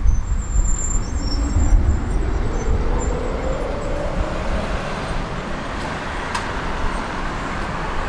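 Two-car tram pulling away from a stop: rumbling on the rails with a motor whine that rises in pitch over the first few seconds as it accelerates, easing off slightly as it moves away.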